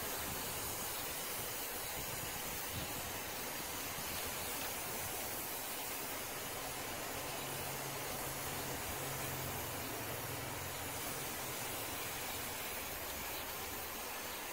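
Aerosol spray paint can giving a steady hiss as paint is sprayed onto a bookcase.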